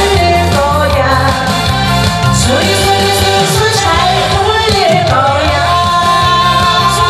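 A woman singing a Korean pop song into a microphone over instrumental accompaniment with a steady beat, amplified through the stage speakers. She holds one long note near the end.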